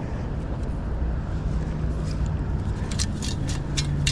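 Steady low rumble of wind and surf. About three seconds in, a run of sharp clicks and rattles starts, like a sand scoop being shaken, with sand, pebbles and a metal target rattling inside.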